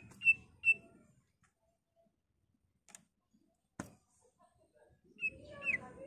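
Greater green leafbird (cucak ijo) calling: three short, sharp high chirps in quick succession at the start, then a quick cluster of chirps with a swooping note about five seconds in. A single sharp click comes a little before that.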